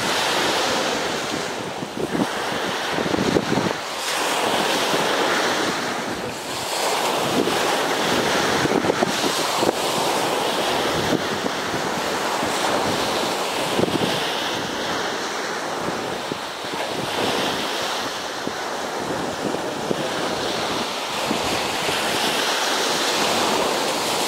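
Surf washing onto a sandy beach in slow swells, with wind buffeting the microphone.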